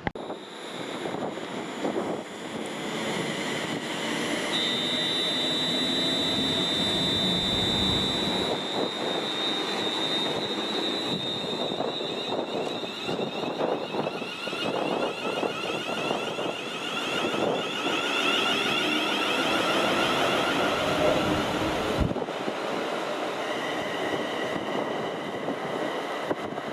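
Express passenger train passing at speed on the fast line: a rushing roar of wheels on rail and air that builds over the first couple of seconds, with a high steady whine for a few seconds. The roar stops abruptly about 22 seconds in.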